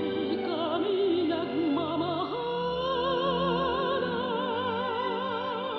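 An operatic soprano sings with wide vibrato over a full orchestra. The voice moves through a lower phrase, then steps up a little over two seconds in and holds a long note.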